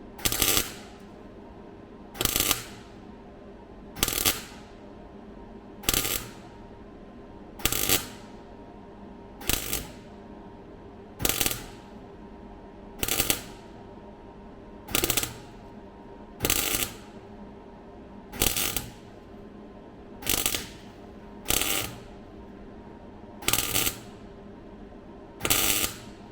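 MIG welder stitch-welding steel floor and bulkhead repair panels: short bursts of welding crackle, one roughly every two seconds, over a steady hum.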